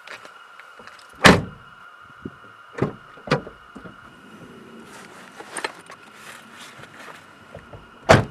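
Car doors being handled and shut, heard from inside the car: a loud slam about a second in and another near the end, with smaller knocks and rustling in between.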